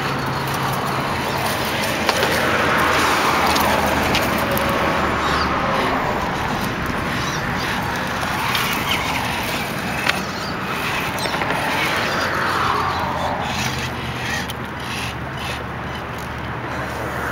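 Scale RC crawler's electric motor and gears whining in rising and falling spells as it claws up a loose gravel pile, with stones crunching and clicking under the tyres.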